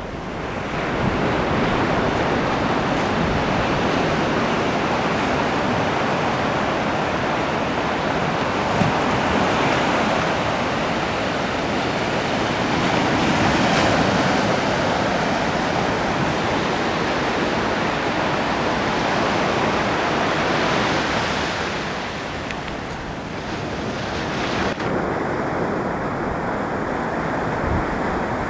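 Ocean waves breaking on a beach, a continuous wash of surf that swells around the middle and eases off somewhat in the last third.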